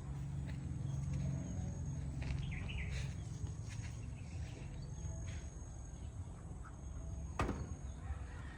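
Ducks calling now and then over a steady low rumble, with one sharp knock about seven seconds in.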